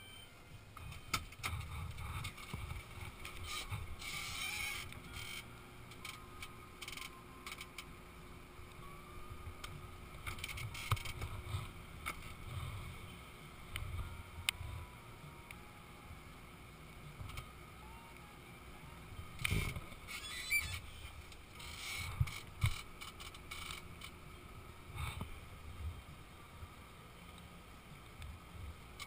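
Faint, irregular rumbling, rustling and knocks of a body-worn action camera moving with its wearer, with a few sharper knocks about twenty seconds in.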